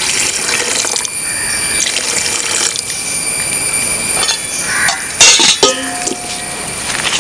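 Water poured into a metal pot of chicken masala, then a perforated metal ladle stirring through the masala, with a few sharp clinks of the ladle against the pot about five seconds in.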